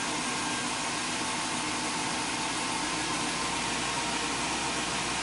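A 2003 Chevy Silverado's 6.0 L V8 running steadily after a cold start, heard from inside the cab as an even whooshing hum. The engine is still warming up in open loop.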